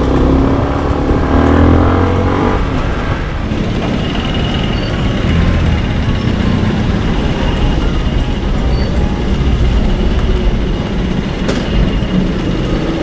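Yamaha Sniper 155's single-cylinder engine pulling, its pitch rising for the first two and a half seconds, then running steadily at low speed amid street traffic. One sharp click near the end.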